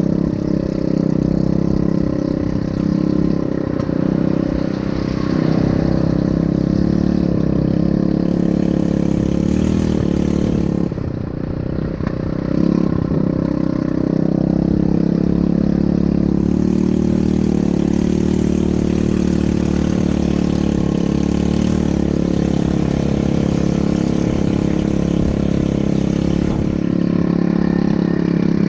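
ATV engine running steadily under way, easing off briefly about eleven seconds in before picking up again.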